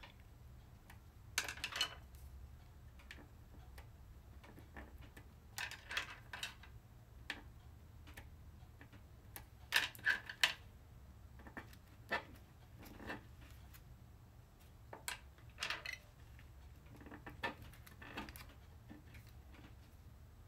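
Scattered light clicks and short rattles from a diamond painting drill pen picking up resin drills from the tray and pressing them onto the canvas, irregularly spaced, over a steady low hum.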